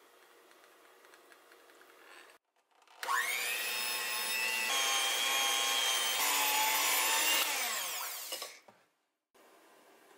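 Electric hand mixer starting about three seconds in, its motor whirring up to speed, beating batter in a glass bowl for about five seconds, then winding down and stopping.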